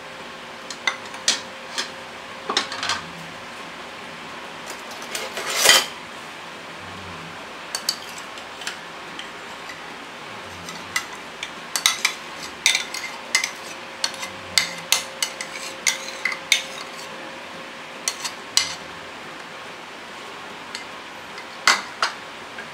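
Irregular clinks and knocks of a utensil and containers against a stainless steel cooking pot while ketchup is spooned onto pork hocks, thickest in a run of quick taps about halfway through. A faint steady hum runs underneath.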